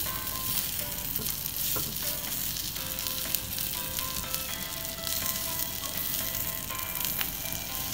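Potato masala frying and sizzling in a miniature kadai while chunks of boiled potato are stirred and broken up with a small slotted spoon. A few sharp clicks come from the spoon against the pan.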